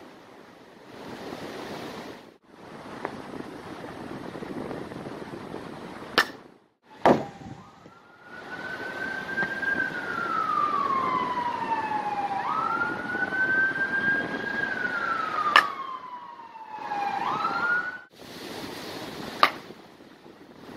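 A baseball bat strikes a pitched ball with sharp cracks, four times, each clip cut in after the last. Through the middle an emergency-vehicle siren wails, rising and falling slowly over several seconds, over a steady outdoor hiss.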